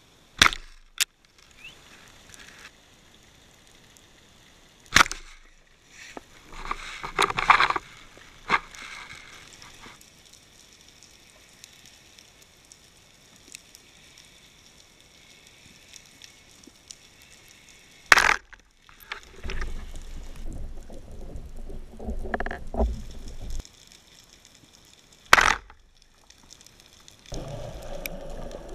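Underwater camera audio from a spearfishing dive: a handful of sharp clicks and knocks, from the speargun and gear, spaced several seconds apart over a low hiss, with a few seconds of rumbling water noise about two-thirds of the way through.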